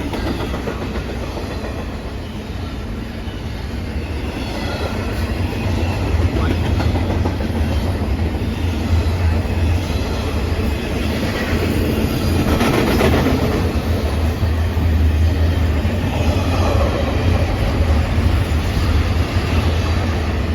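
Train running past on the track: a steady low rumble with wheel-on-rail noise, getting louder over the first several seconds and then holding. No horn sounds.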